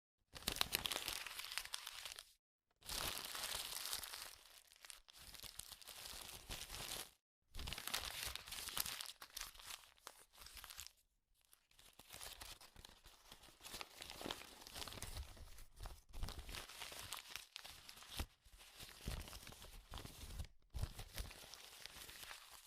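Sheet of paper being crumpled and scrunched by hand: dense crackling and crinkling in several stretches, broken by short pauses.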